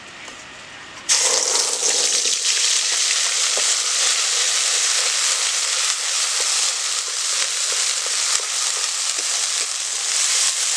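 Wet ground green-pea and green-chilli paste dropped into hot oil in a karai (wok), setting off a sudden loud sizzle about a second in. The sizzle runs on steadily while the paste is stirred with a metal spatula.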